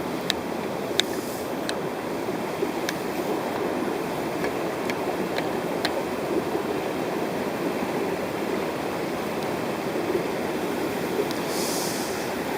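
Mountain stream water rushing steadily, with a few faint sharp clicks in the first several seconds and a brief hiss near the end.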